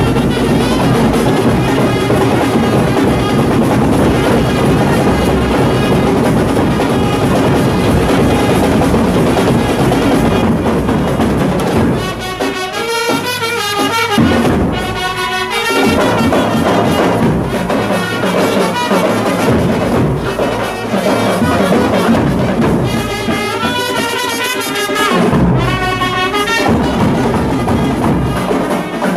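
Loud kuthu dance music with brass and drums. Twice the drums drop back and a bright melodic line carries on alone for a few seconds.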